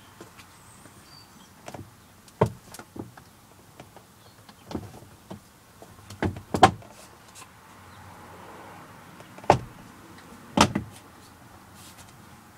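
Jaguar X-Type plastic door card being pressed and thumped onto the door by hand: a string of irregular sharp knocks and clicks as its clips snap home, the loudest about halfway through and near the end.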